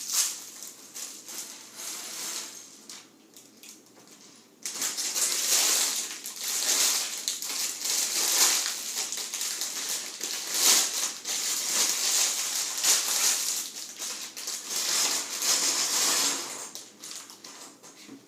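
Plastic bags of LEGO pieces crinkling and loose plastic pieces clattering and rattling inside them as they are handled. It is faint with scattered clicks at first, then starts up suddenly about four and a half seconds in and stays busy until shortly before the end.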